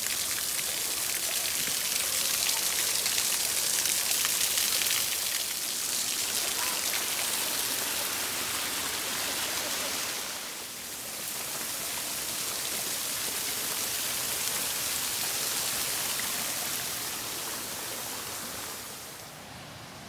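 Thin waterfall splashing down a rock face into a small pool, a steady hiss of falling water that grows fainter near the end.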